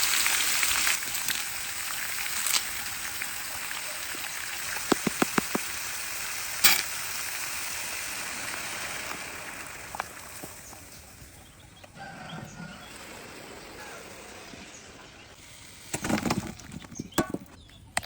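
Chicken deep-frying in hot oil: a steady sizzle that dies down after about ten seconds. A quick run of clicks comes about five seconds in, and a few knocks near the end.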